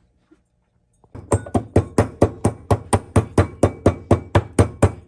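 Pestle pounding black pepper and cumin in a mortar: a steady run of sharp strikes, about four a second, each with a short ring, starting about a second in.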